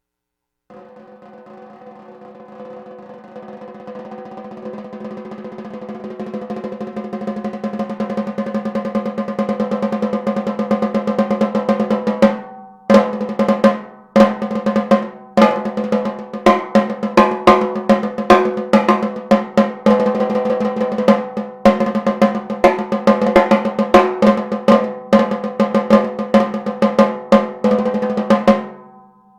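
DW Design Series 14x6.5 nickel-over-brass snare drum played without muffling. A roll swells from soft to loud over about eleven seconds, then after a brief break come loud accented strokes mixed with short rolls, stopping near the end. A steady ring of overtones sounds under the notes.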